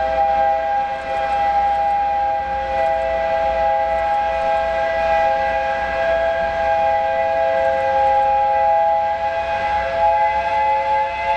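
Steam whistle of the 8620-class steam locomotive 58654 (SL Hitoyoshi), blown as one long, unbroken chord of several tones. Its pitch wavers slightly, so that it sounds like crying.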